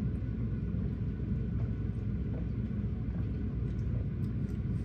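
Steady low background rumble, with a few faint soft clicks.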